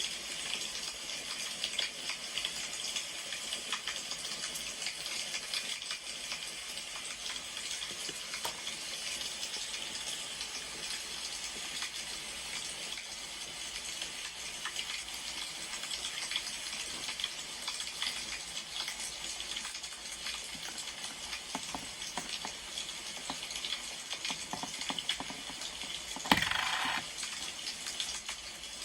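Wood fire crackling: a steady fine crackle and hiss with small pops throughout. Near the end there is a sharp knock followed by a short louder sound.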